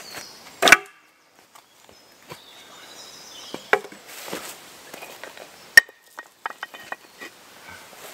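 Wooden sticks cracking and knocking as they are handled and broken, with a loud crack about a second in and a run of small sharp clicks near the end; dry leaf litter rustles underfoot between them.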